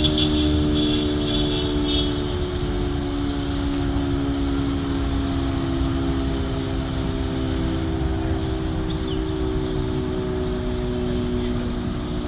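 City siren sounding a long, steady wail of several blended tones, its pitch sinking slowly, over a low rumbling background.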